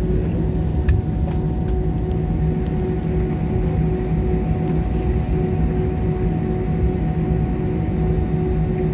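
Airbus A320 cabin noise while taxiing after landing: a steady low rumble with a constant hum from the idling jet engines. A single short click about a second in.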